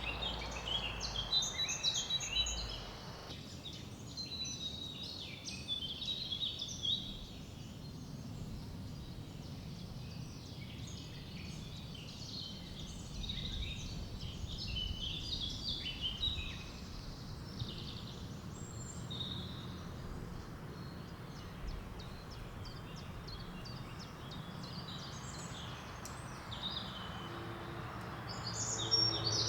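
Small woodland birds chirping and singing throughout in quick, overlapping phrases, over a steady low rush of river water flowing over small rapids.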